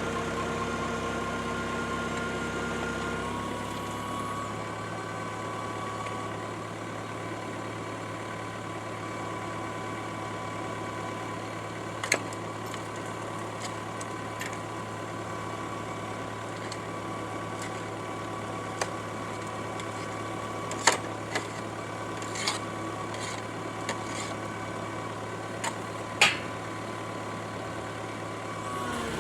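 Engine of an auger-drilling machine running steadily, its tone shifting slightly a few seconds in, with a few short sharp knocks scattered through.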